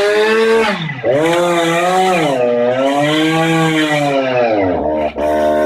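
Two-stroke chainsaw running at high revs. Its pitch dips and recovers twice, then falls to a lower, steady note near the end.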